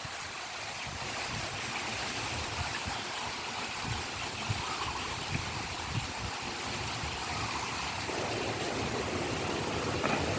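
Heavy rain falling in strong wind: a steady, even hiss that grows fuller and deeper about eight seconds in.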